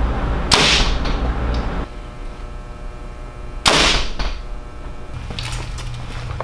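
Two shots from a PSE Fortis compound bow, about three seconds apart, each a sudden sharp crack of the released string and limbs with a short ringing tail.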